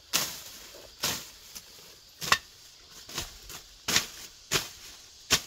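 A hand tool chopping into grass in repeated strikes: seven sharp chops, roughly one a second at an uneven pace.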